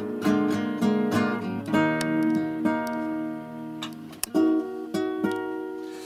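Classical nylon-string guitar played solo: strummed chords and picked notes, softer through the middle, with a sharp strum about four seconds in.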